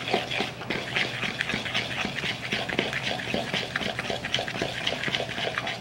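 A metal utensil rapidly stirring a thick confectioners' sugar and cream glaze in a bowl: a steady run of quick scraping strokes, several a second.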